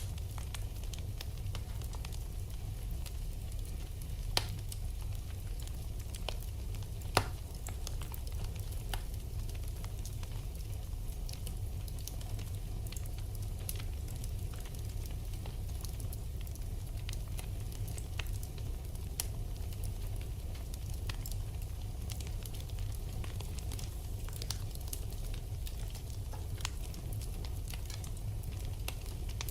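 Wood fire burning in a fireplace, crackling with many small scattered pops over a steady low rumble, and two louder pops a few seconds apart.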